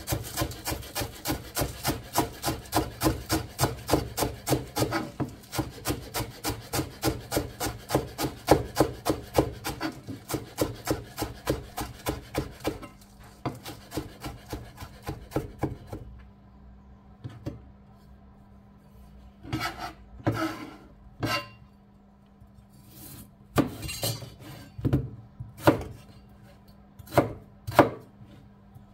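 Kitchen knife chopping on a wooden cutting board: quick, even strokes at about four a second for most of the first half, then after a short pause a slower run of separate chops.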